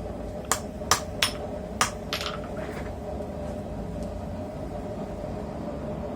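Blacksmith's hammer striking steel on an anvil: about five quick blows in the first two seconds or so, the last with a brief ringing tail, while thinning the edge of a mild-steel piece. After the blows only a steady hum remains.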